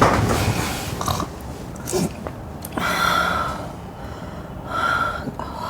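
A person snoring loudly in bed: a run of separate rough snores, the two longer ones about three seconds in and near the end carrying a thin whistling tone.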